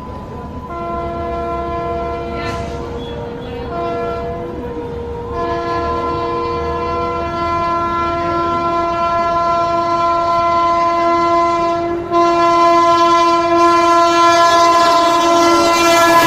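Indian Railways locomotive horn sounding in long blasts with a few short breaks, several tones sounding together, growing steadily louder.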